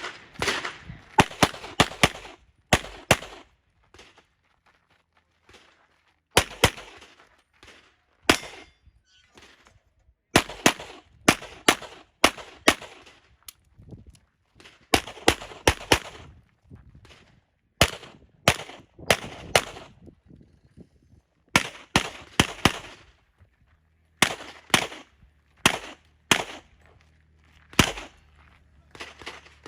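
Pistol shots fired in quick pairs and short strings, with brief pauses between groups, as a shooter works through a practical-shooting stage.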